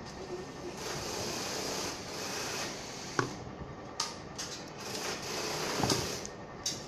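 Handling noise from an opened aluminium-cased micro-inverter being worked on and turned over. Two stretches of rough scraping and rustling, with a few sharp clicks and knocks from the metal case and board.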